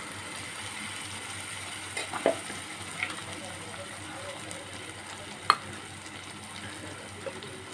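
Onion-tomato masala sizzling steadily in a frying pan as thick ground coconut paste is poured onto it, with a few light knocks, the sharpest about five and a half seconds in.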